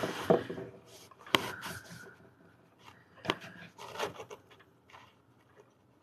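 Hands handling a clay-covered glass bottle and small clay pieces on a wooden table: a couple of sharp light knocks and soft rubbing of fingers on clay and glass.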